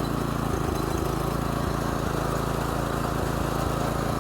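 Small go-kart engine running at a steady fast idle on first start-up: the idle is too high, causing the clutch to engage. The owner puts it down to the engine only running on choke with a dirty carburetor.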